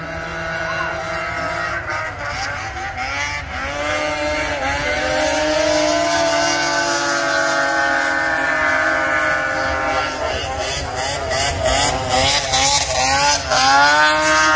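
Several racing snowmobile engines running hard around an ice oval, their pitch rising and falling as they lap. After about ten seconds the pitch wavers, then near the end it sweeps sharply upward as the sleds accelerate.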